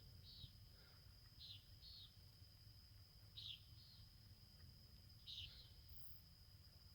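Faint nighttime outdoor chorus: a steady, thin, high insect drone with short high chirps, often in pairs, repeating every second or two.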